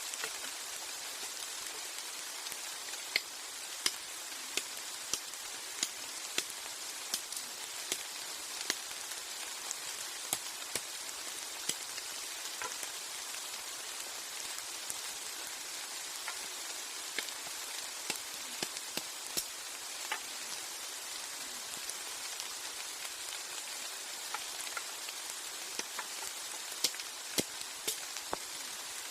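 Heavy rain: a steady hiss with frequent sharp, irregular drop impacts.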